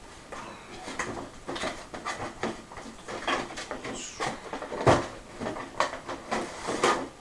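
A cardboard figure box being opened and handled: the top flap pulled open, an inner card piece drawn out, and the box slid off the figure, giving a string of short rustles, scrapes and taps, with one louder thump about five seconds in.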